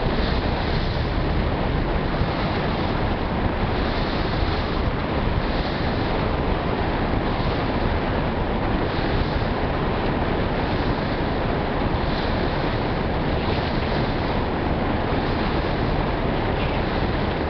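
Steady rush of wind on the microphone over water washing past a passenger ferry under way, with a low rumble beneath, all unbroken throughout.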